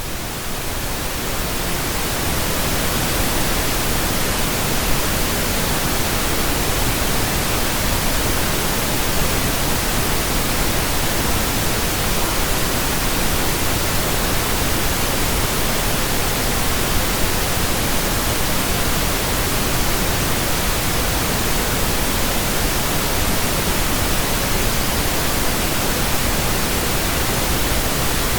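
Steady generated pink noise, an even hiss that rises in level over the first two seconds and then holds constant.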